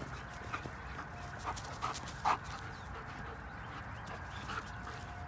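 German Shepherd dogs at play, a puppy among them, giving a few short yips, the loudest about two seconds in.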